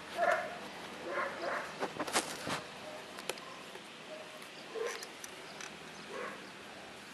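Young puppies squeaking and whimpering briefly now and then as they nurse and scramble over their mother, with a few sharp clicks around the middle.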